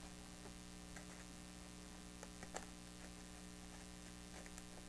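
Quiet room tone: a steady, low electrical hum with a few faint, light ticks.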